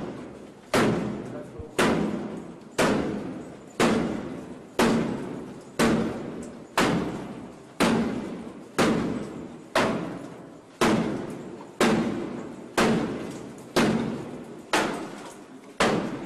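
A door being struck hard over and over, about once a second, as police try to force their way in; each blow echoes briefly and dies away before the next.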